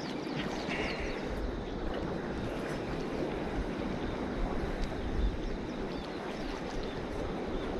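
Steady outdoor noise with wind buffeting the microphone in low rumbles that grow strongest about five seconds in.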